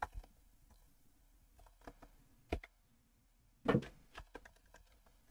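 A few scattered computer keyboard keystrokes, single taps a second or so apart with a slightly louder double tap past the middle.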